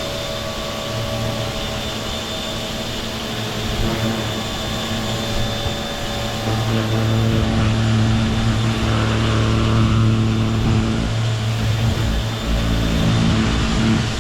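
Pressure washer running steadily, a machine hum under the hiss of its spray, getting louder about halfway through.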